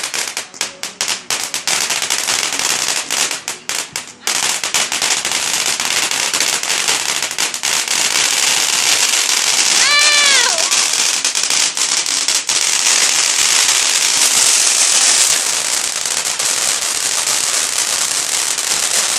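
Consumer fireworks going off close by, very loud: a quick run of separate sharp bangs for the first few seconds, then a dense, continuous crackling barrage.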